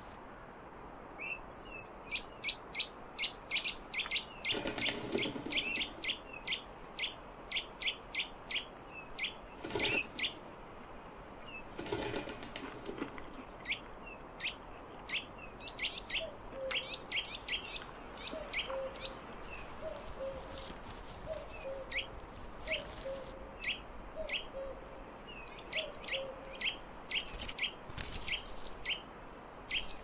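Small songbirds calling: a rapid run of short, high, downward-sweeping chirps, several a second, through most of the stretch. A soft lower note repeats about once a second in the middle part, and there are a few brief rustling bursts.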